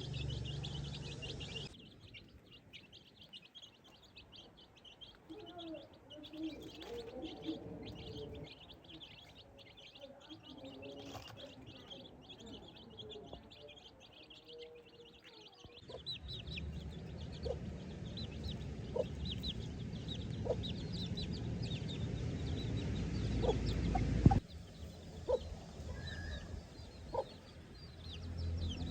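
Baby chicks peeping over and over in short, high chirps as they forage, with lower clucking calls from chickens in between. A low rumble comes in partway through.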